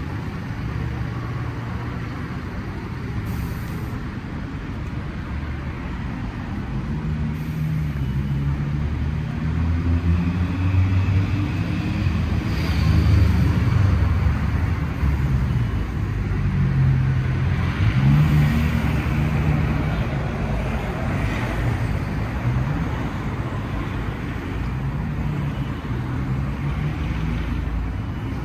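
Road traffic on a busy city street: vehicle engines running and passing over a steady traffic noise, louder in the middle and easing off toward the end.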